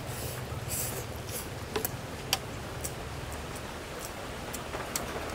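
Sounds of eating at a meal table: scattered light clicks and brief rustles from food and dishes being handled, the sharpest click a little over two seconds in, over a steady low hum.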